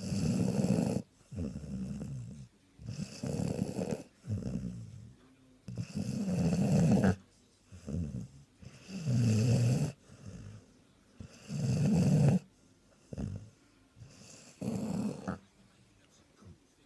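Sprollie (springer spaniel and border collie cross) snoring loudly in its sleep. There is a loud snore about every three seconds, with a quieter breath between each pair.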